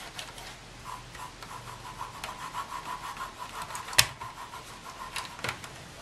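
Tissue rubbing and wiping the plastic case of a Sun Type 5 keyboard, with a faint squeak repeating through the middle. A sharp click comes about four seconds in.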